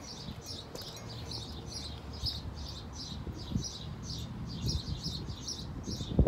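A small bird chirping over and over, about three short high chirps a second, over a low rumble. A single thump near the end is the loudest sound.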